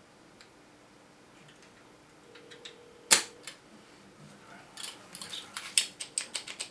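Clicks from small hard objects being handled: one sharp click about three seconds in, then a quick irregular run of clicks and rattles near the end.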